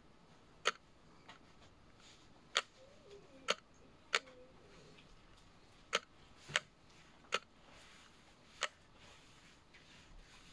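About eight sharp, short clicks or taps at irregular intervals, over a faint room hiss.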